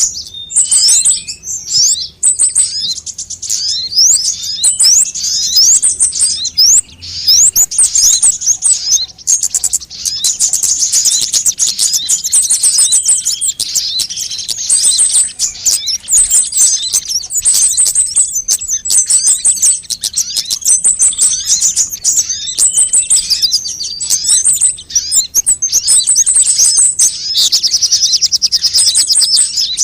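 Sunbird calls played as a bird lure: loud, rapid, high-pitched twittering chirps and trills, phrase after phrase with hardly a break.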